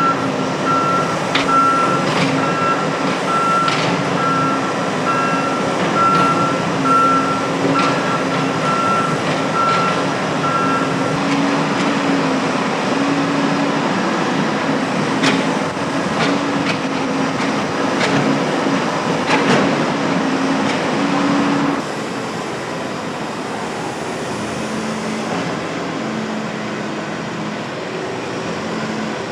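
Diesel engine of an SDLG EA780H wheeled excavator running steadily, with a travel warning alarm beeping a little faster than once a second that stops about a third of the way in. There are a few sharp knocks, and about three quarters of the way through the engine drops to a lower, quieter note.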